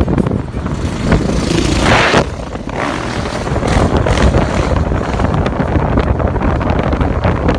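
Motor vehicle driving along a road, with engine and road noise and wind buffeting the microphone; a stronger gust of wind about two seconds in.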